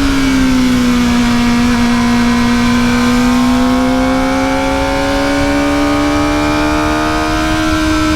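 Kawasaki ZX-4RR's 399 cc inline-four running at high revs through its stock exhaust under way. Its pitch dips in the first second, then climbs slowly and steadily as the bike pulls in gear.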